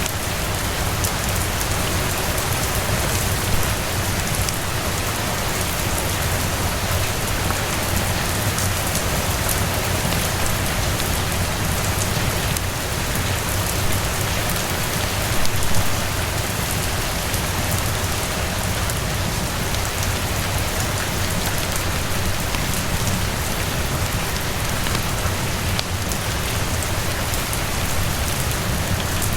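Steady rain falling, mixed with the crackle of a wood fire, with a couple of louder pops about 4 and 16 seconds in.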